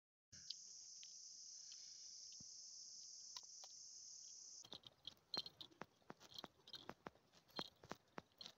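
Faint steady high buzzing of insects that cuts off abruptly about four and a half seconds in, followed by a run of irregular sharp clicks and short high chirps.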